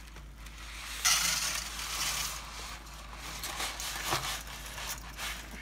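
Dry spaghetti pouring out of its cardboard box into a pot: a sudden dry, rustling rush about a second in, then a few shorter rustles.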